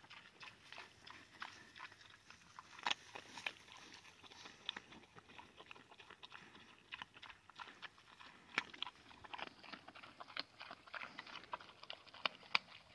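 Pigs munching acorns: irregular crunching and sharp cracks as the nuts are bitten open and chewed, a few louder cracks standing out.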